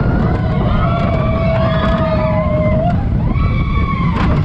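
Gerstlauer junior roller coaster train running along its steel track: a steady rumble of wheels with wind on the microphone, and a high, steady squeal for about two seconds from half a second in, then a shorter one near the end, as the train goes through curves.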